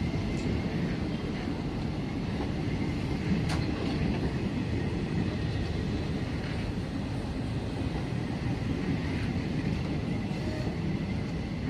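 Indian Railways passenger coaches rolling past close by: a steady rumble of wheels on rail, with an occasional sharp click.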